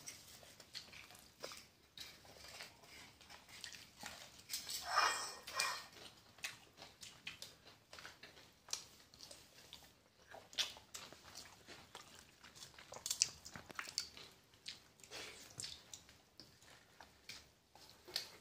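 A person eating pakhala (watered rice) with curry by hand: faint chewing and wet mouth sounds with scattered small clicks, and one louder, longer sound about five seconds in.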